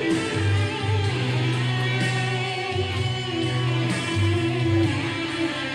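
Godin Redline HB electric guitar, freshly given a pro setup, being played, with sustained high notes over low notes that come and go.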